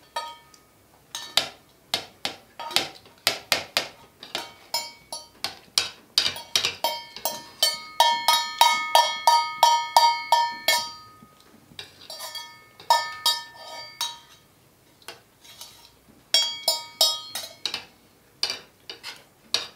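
Spoons clinking against metal plates of rice, several sharp clinks a second. In some stretches the clinks ring on with a bright metallic tone.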